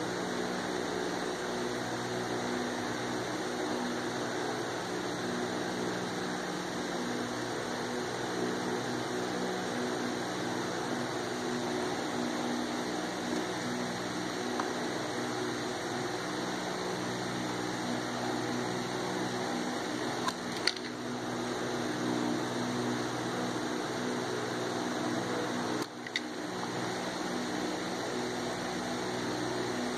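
Steady mechanical hum and hiss, like a running fan or air conditioner, with two short clicks in the latter part and a brief drop in level just before the second.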